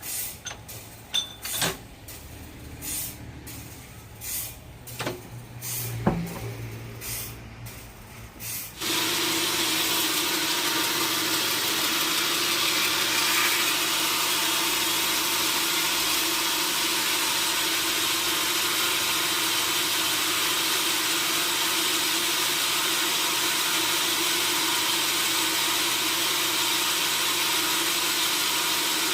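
Sawmill work noise: scattered knocks and clatter with a low hum and one heavier thud. About nine seconds in, a sawmill saw starts abruptly and runs steadily to the end, a loud even hiss with one steady tone in it.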